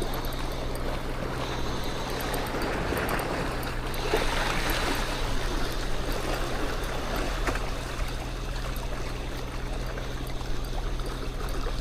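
Water splashing and rushing, strongest about four to five seconds in, over a steady low motor hum.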